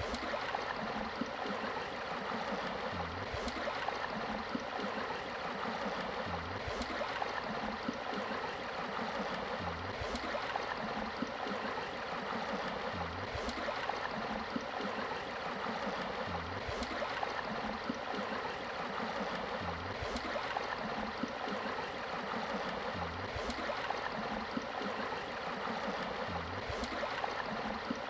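Steady rush of flowing river water, with a faint low thump and a click repeating evenly about every three seconds.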